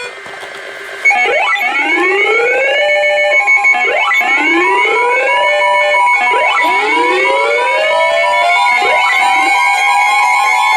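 Synthesized electronic alert sound. It starts about a second in: clusters of rising, sweeping tones come about every two and a half seconds over steady and pulsing held beeps.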